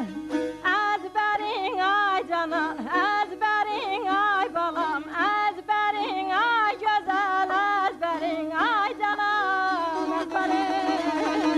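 A woman singing in the Azerbaijani aşık style, her voice bending and ornamented in wavering turns, over a long-necked saz that keeps up a steady drone note beneath the melody.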